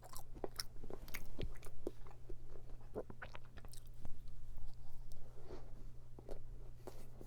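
Close-miked chewing of a walnut-topped tart: irregular soft crunches and mouth clicks of pastry and nuts being bitten and chewed.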